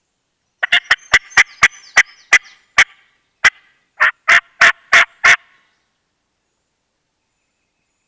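A turkey call sounding hen notes close by: nine sharp, clipped notes at an uneven pace, then after a short pause a run of five even yelps. It is loud, and it stops after about five seconds.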